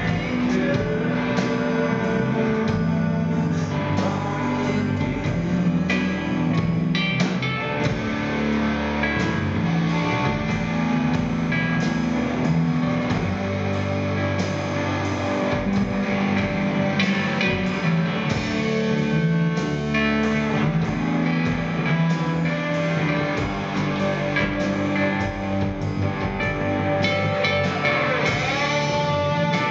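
Live rock band playing: electric guitars, drum kit and keyboard together in a steady, full-band passage.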